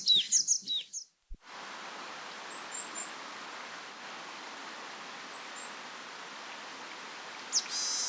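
A Japanese tit singing its repeated falling notes, cut off about a second in. After a brief gap, a varied tit gives short, very high, thin calls over steady outdoor hiss: three quick notes, then two more a few seconds later. A brief louder high sound comes near the end.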